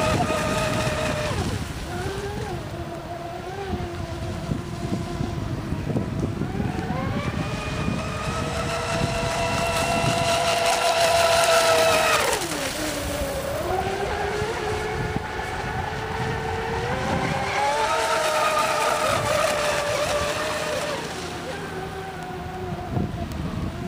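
High-revving whine of an RC speedboat's SSS 3674 2075kv brushless motor and surface prop under full power on 6S, rising and falling in pitch as the boat runs its passes. It is loudest about twelve seconds in, and its pitch drops steeply as the boat goes by close.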